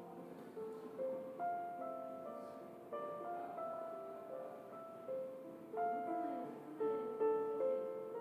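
Soft background piano music: notes and small chords struck about once a second, each ringing and fading.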